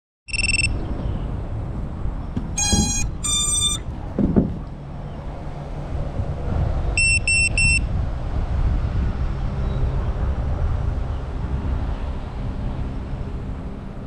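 Electronic beeps from an FPV drone's electronics while it sits still before flight: one beep, then two short multi-tone chimes a few seconds in, then three quick beeps about halfway through, over a steady low rumble.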